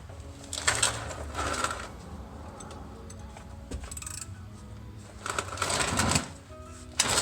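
Socket ratchet clicking in three quick rattling bursts as a tight 16mm bolt is worked loose, with faint background music underneath.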